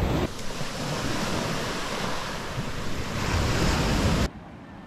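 Ocean surf washing onto a beach, with wind buffeting the microphone. The rush cuts off abruptly near the end to a much quieter background.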